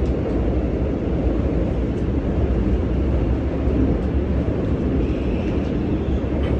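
Steady low rumble of a moving vehicle heard from inside, with no distinct events.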